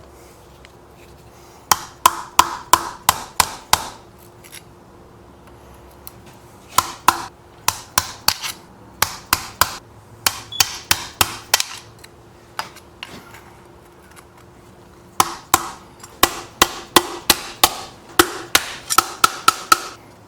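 Hammer blows on a 6.0 Powerstroke diesel's turbocharger, beating to free a stuck part during teardown. Three runs of quick strikes come about three a second, each with a short metallic ring.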